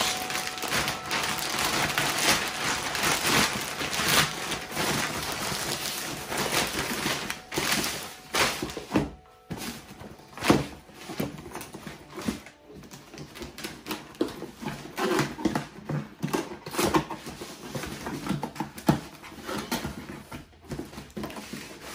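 A plastic mailer bag crinkling and tearing as it is pulled open, a dense rustle through the first several seconds, then scattered knocks, taps and scrapes of a cardboard shoe box being handled and opened.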